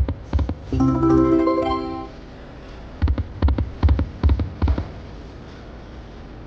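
Poker machine game sounds: a short chime about a second in, then a quick run of short mallet-like notes over low thumps, about three or four a second, from about three seconds in.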